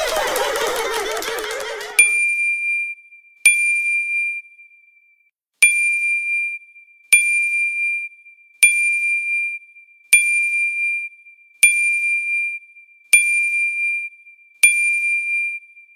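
A dense, warbling sound effect for about two seconds, then a bright, high-pitched 'ding' sound effect repeated nine times, about every one and a half seconds, each a sharp strike with a briefly held single tone.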